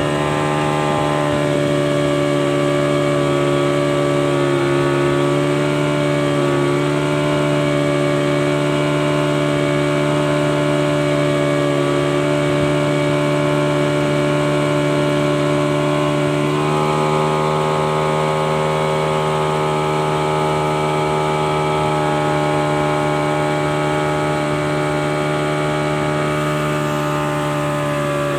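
Yamaha 40 hp outboard motor running steadily at high speed, driving a speedboat along a river. Its pitch steps up a little about two-thirds of the way through.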